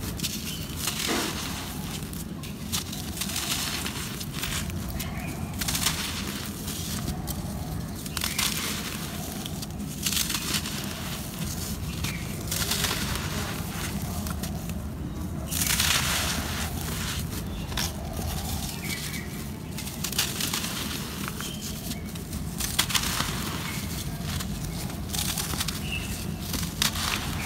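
Dry lumps of red dirt crumbling in bare hands: crisp crackling and crunching as the chunks break apart and the powder pours down, in repeated bursts a second or two long. A steady low rumble runs underneath.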